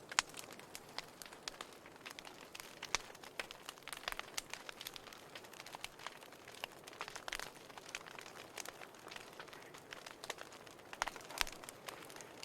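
Wood fire crackling in a fireplace: irregular pops and snaps over a soft hiss, with a few louder pops.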